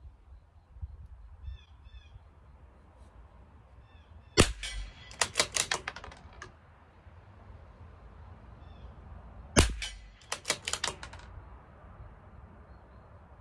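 Two .22 LR shots from a CZ 457 LRP bolt-action rifle, about five seconds apart, each followed by a quick run of clicks as the bolt is worked for the next round. Faint bird chirps between the shots.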